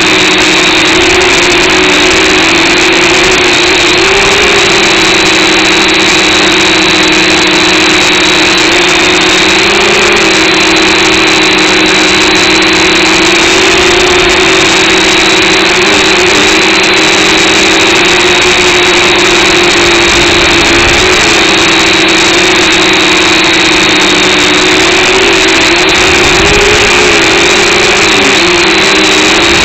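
Small camera drone's motors and propellers whining steadily, the pitch shifting slightly now and then as it manoeuvres.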